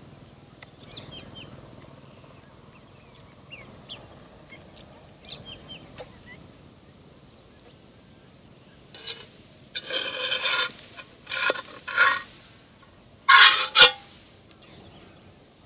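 Loud calls from a fowl in three bouts, starting about nine seconds in, over the scattered chirps of small birds.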